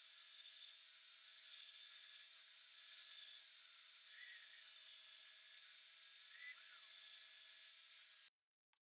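Bandsaw running and cutting through a laminated plywood block, a steady tone under the hiss of the blade, with louder cutting patches around two and three seconds in. The sound cuts off abruptly near the end.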